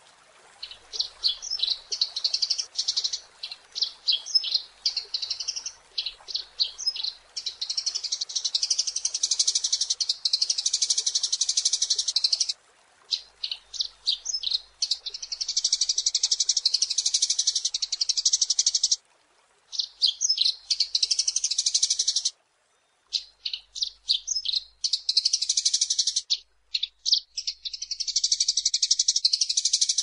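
Eurasian tree sparrow chirps in a fast, dense chatter of high notes, in long stretches broken by a few brief pauses.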